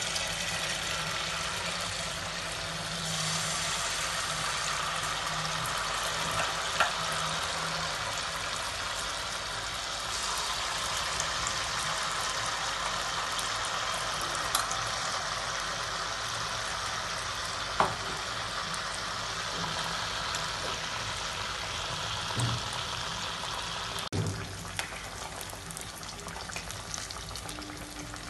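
Malpua batter deep-frying in hot oil in a kadhai: a steady sizzle and bubbling. A few sharp clicks of a metal ladle or spatula against the pan come through it, more of them near the end as the pieces are turned.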